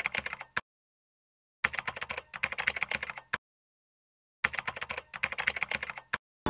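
Typing sound effect: rapid key clicks in three runs, with a second of dead silence between them. The first run ends just under a second in, and the last stops shortly before the end.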